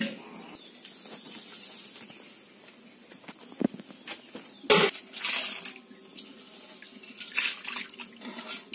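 Cloth rubbing against the microphone, then a few sharp knocks and splashes of metal cooking pots and water. Near the end, wet food or water is poured from a steel bowl into a pan on a wood fire.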